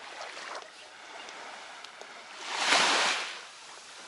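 A small sea wave washing up onto a sandy beach: a hiss that swells and fades once, about two and a half seconds in, over a faint steady background hiss.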